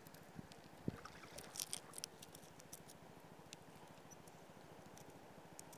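Faint clicks and ticks of a long-lip plastic minnow lure and its line snap being handled, a small thump about a second in and a cluster of clicks just after, then only scattered ticks over a low steady hiss.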